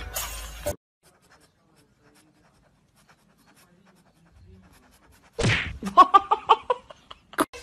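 Near silence for several seconds, then a sudden scuffle: a sharp noisy burst, followed by a quick run of knocks and short, high cries as a cat lunges at a woman's face and the phone filming is knocked about.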